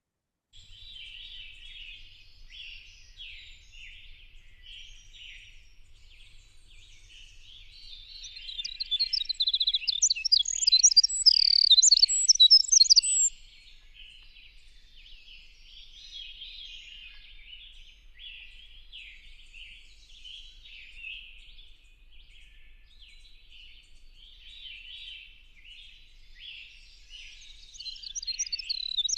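Recording of a winter wren singing: a long, very rapid song of high tinkling trills and warbles, loudest from about eight to thirteen seconds in and starting again near the end. Under it runs a softer, continuous rapid twittering.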